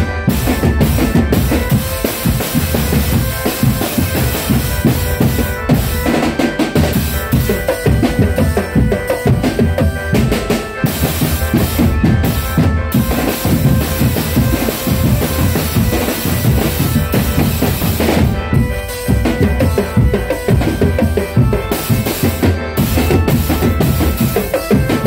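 Drum band playing live: bass drums and snare drums beating a fast, dense rhythm.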